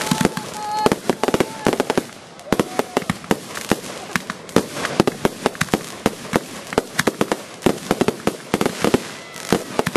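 Consumer fireworks going off: a rapid, uneven string of sharp pops and crackles, several a second.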